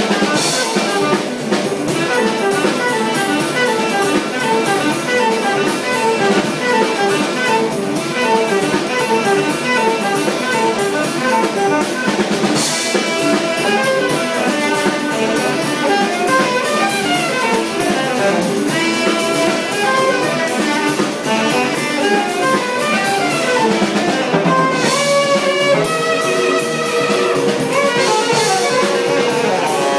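A jazz band playing live: archtop electric guitar, grand piano, electric bass and drum kit, with quick runs of notes over a steady drum beat.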